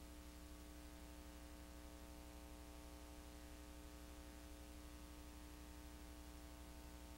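Near silence: a steady electrical mains hum with faint hiss.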